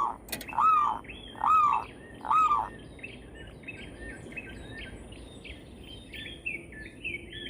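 Wild birds calling: a loud series of rising-then-falling whistled notes about once a second, which stops about a third of the way in, followed by a quick, continuing run of shorter, higher chirps.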